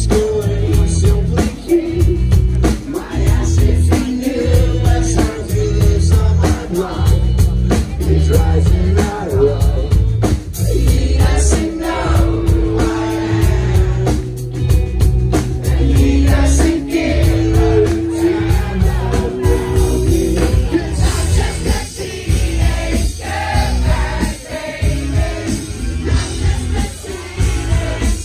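Live band playing loud amplified music, with heavy bass, steady drum beats and held notes, and a voice singing over it.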